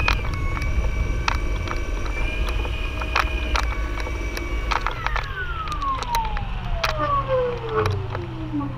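Electric motor and propeller of the Synchronus Goat electric trike, a steady high whine that falls smoothly in pitch from about five seconds in as the motor spins down after the flight. Underneath run a low rumble and scattered sharp clicks.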